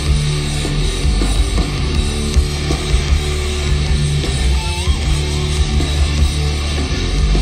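Live heavy metal band playing loud: electric guitars and drum kit through a stage sound system.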